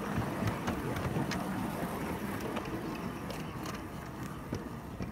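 Steel wheels of a 3.5-inch gauge ride-on garden railway train rolling over freshly laid, not yet fastened track: a steady rumble with irregular clicks at the rails, growing fainter toward the end.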